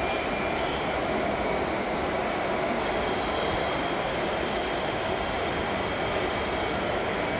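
A vehicle engine running steadily with no change in pitch or level.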